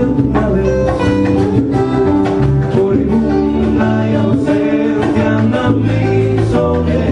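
Live band playing a Latin song: a male lead voice singing over strummed acoustic guitar, electric guitars, bass and hand drum.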